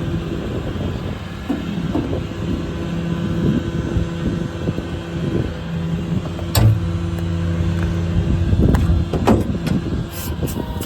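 Ram 5500's 6.7 Cummins diesel engine idling steadily, with a few sharp knocks over it about six and a half seconds in, around nine seconds in, and near the end.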